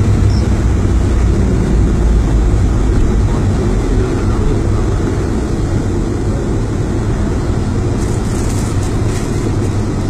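Steady rumble of a vehicle driving in a downpour, heard from inside the cabin, mixed with the rush of rain and water cascading down the rock face beside the road.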